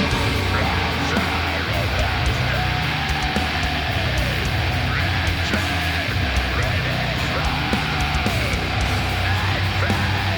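Death metal music: heavy guitar riffs at a steady loud level, with arching, wavering pitch lines running through the middle register.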